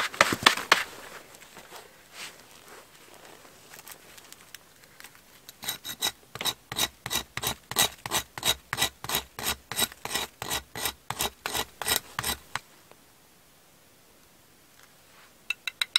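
A blade rasping on wood in quick, even strokes, about two and a half a second, for some six seconds, which sounds like cutting or scraping firewood. A few light clicks come before the strokes and again near the end.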